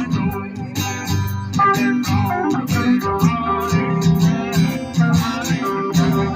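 Live band playing a song: strummed acoustic guitars and other plucked strings over bass and a steady drum beat.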